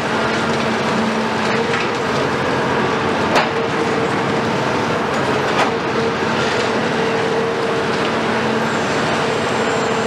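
Cat 374 long-front demolition excavator at work: its Cat C15 ACERT diesel engine and hydraulics run steadily with a hum that comes and goes, over a constant din of concrete being broken and rubble crunching. Two sharp cracks stand out, about a third and just over half way through.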